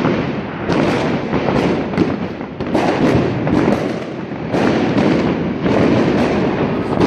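Dense barrage of fireworks and firecrackers going off all around, with many sharp bangs and crackles a second overlapping into an unbroken din.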